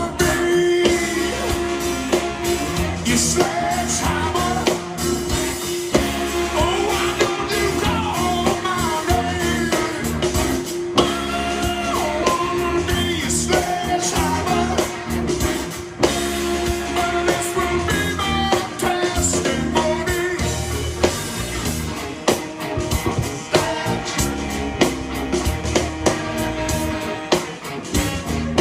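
Rock song playing: a singer over a full band with drums and guitar, at a steady beat.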